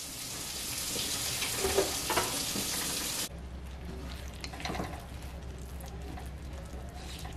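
Chile oil sizzling in a wok as minced garlic, fresno chiles and crushed red chile flakes are stirred with a silicone spatula. The hiss cuts off suddenly about three seconds in, leaving quieter stirring and scraping over a low hum.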